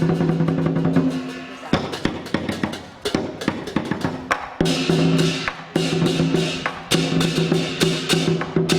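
Lion dance percussion band playing: fast drum and cymbal strikes in a driving rhythm. A sustained ringing tone sounds under the strikes, drops out about a second in, and comes back a little after the middle.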